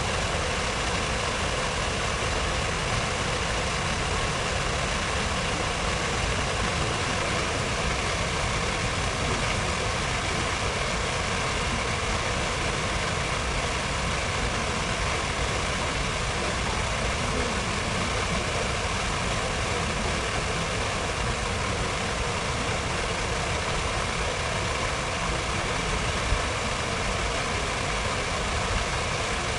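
Steady, unchanging ambience of an open city square: an even wash of noise with a low rumble beneath it, and one brief tap near the end.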